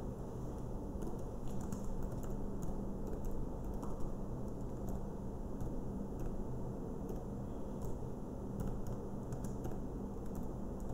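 Computer keyboard keys clicking in short, irregular keystrokes of typing, over a low steady hum.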